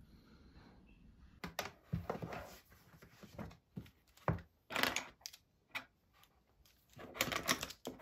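Books, notebooks and pens being handled and set down on a desk: a run of light knocks, taps and paper rustles with short pauses between, after a faint steady hum in the first second or so.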